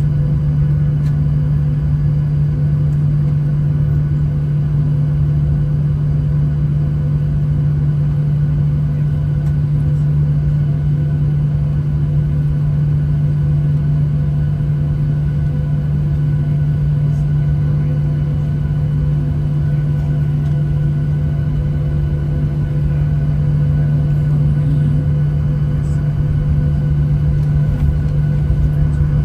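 Jet airliner's engines running at taxi power, heard inside the passenger cabin: a steady low drone with a strong constant hum.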